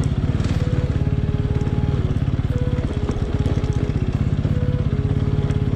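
Motorcycle engine running steadily at an even, fast pulse while the bike is ridden along a rough dirt road.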